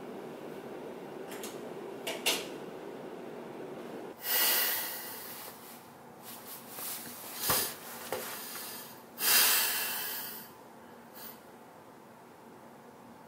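A man's two heavy, forceful exhales, each about a second long, near four and near nine seconds in, with a sharp knock between them. Before them, a steady room hum with a few small clicks.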